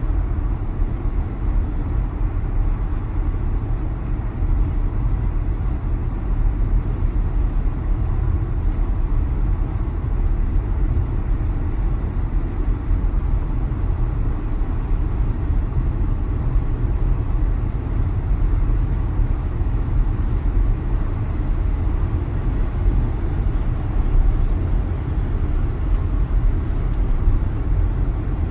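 Steady low rumble of tyre and wind noise heard inside the cabin of a 2022 Tesla Model Y electric car cruising, with no distinct motor whine standing out.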